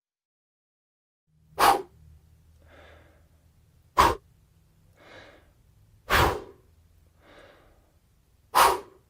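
A person blowing sharp puffs of breath, four short bursts roughly two seconds apart, with softer breaths drawn in between them.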